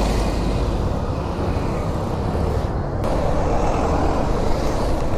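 Motorcycle riding through city traffic: steady road and wind noise with the bike's engine running underneath.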